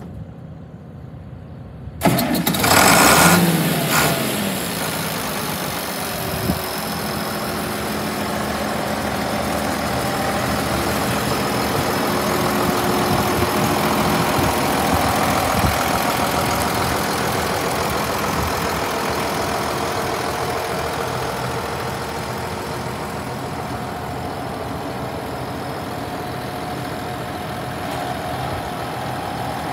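International Harvester 1486 tractor's six-cylinder turbocharged diesel starting about two seconds in, loudest for the first couple of seconds after it catches, then settling to a steady idle.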